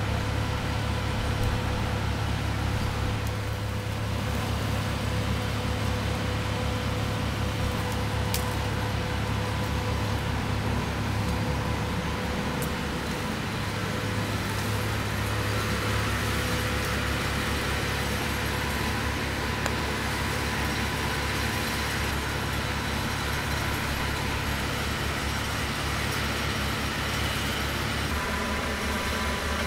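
An engine running steadily: a low, even drone that does not rise or fall in pitch.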